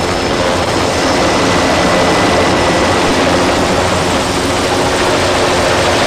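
Helicopter in flight heard from inside the cabin: a loud, steady rush of rotor and turbine noise with a faint steady whine.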